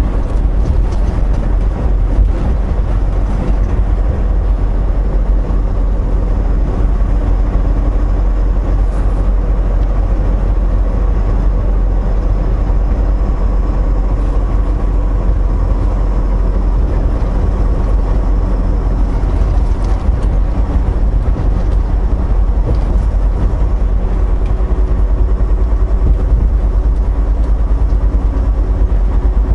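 Steady, loud low drone inside a semi-truck's cab as it cruises at highway speed: engine and road noise together, with a faint steady hum riding on top.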